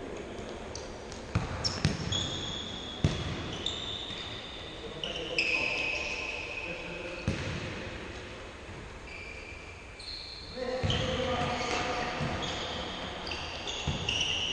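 Futsal ball being kicked and passed on a hard indoor court: several sharp thuds in the first few seconds and another about seven seconds in, with short high squeaks of sports shoes on the floor and players calling out near the end, echoing in a large sports hall.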